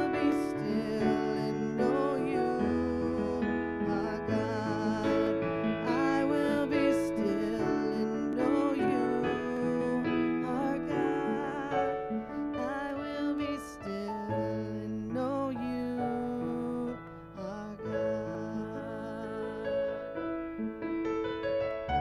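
A slow worship song: a woman singing, accompanying herself on a Roland digital piano with held chords and a low bass line.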